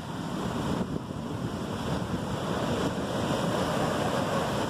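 Surf washing up the sand, mixed with wind on the microphone; the wash swells over the first couple of seconds and then holds steady.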